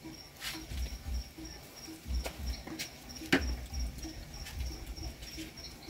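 A cricket chirping steadily in a high, even pulse, with a few sharp clicks or crackles over it.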